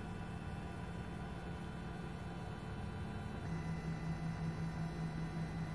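3D food printer's stepper motors humming steadily as the syringe nozzle extrudes paste and builds up a layer, the hum dropping slightly in pitch about three and a half seconds in as the motion changes.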